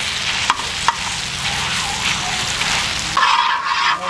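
Onion, tomato and potato masala sizzling in hot oil in a pan as it is stirred and mixed with a utensil, with a couple of sharp clicks of the utensil against the pan. The sound changes about three seconds in.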